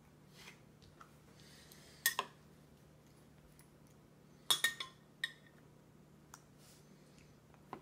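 Metal spoon clinking against a glass food container: a sharp clink about two seconds in, a quick cluster of three or four around four and a half seconds, then a few fainter taps.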